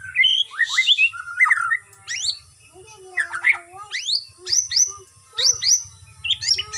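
White-rumped shama (murai batu) singing a varied song of clear whistles and fast rising sweeps, phrase after phrase with short pauses between.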